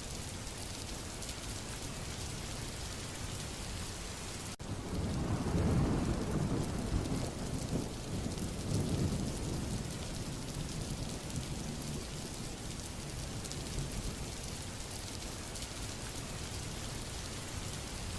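Steady heavy rain. About five seconds in, a roll of thunder rumbles for several seconds, loudest near the start of the roll, then fades back under the rain.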